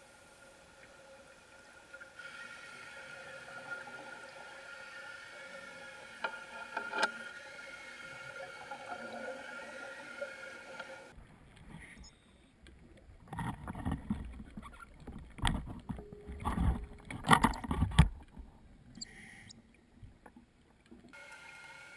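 Underwater recording: a steady hum, then, from about halfway, loud irregular bubbling rumbles of scuba divers' exhaled bubbles from their regulators.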